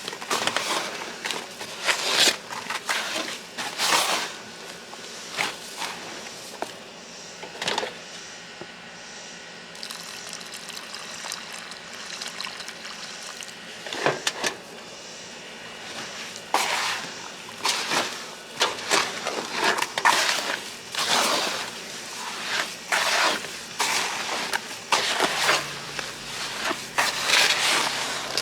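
Wet mortar being mixed by gloved hands after water is added, with irregular squelching and scraping in bursts and a quieter stretch in the middle.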